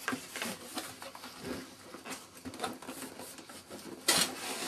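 Packaging of a boxed model being handled and opened: a run of small clicks and taps, then a louder scrape near the end.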